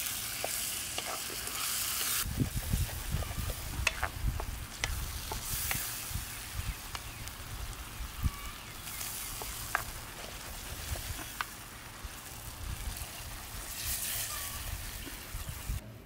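Chopped chillies and vegetables sizzling in hot oil in a frying pan, with a wooden spatula stirring and scattered clicks and scrapes against the pan.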